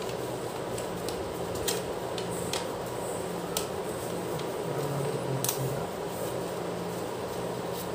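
Sheet of origami paper handled and folded by hand, with a few short sharp paper crinkles and snaps, over a steady hum and hiss like a running fan.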